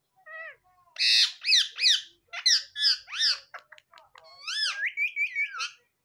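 Indian ringneck parakeet squawking and chattering: a quick run of harsh rising-and-falling calls, several a second. The harshest squawk comes about a second in, and there is a string of quick short chirps near the end.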